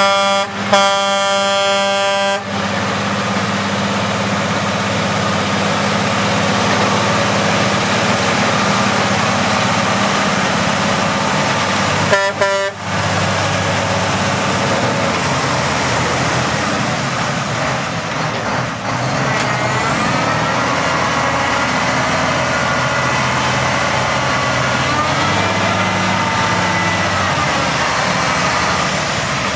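Heavy truck engine running steadily as the truck drives through mud on rubber tracks over its rear tandem axles. A horn sounds for about two seconds shortly after the start, and again briefly about twelve seconds in. Later a wavering whine rises and falls over the engine.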